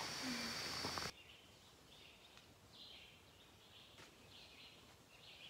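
Woodland ambience. For about the first second there is a steady hiss with a high steady whine. Then the sound drops abruptly to faint background with short bird calls repeating every half second to a second.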